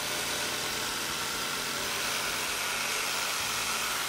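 Power saw cutting through a rhino's horn during dehorning: a steady grinding noise that holds at one level throughout.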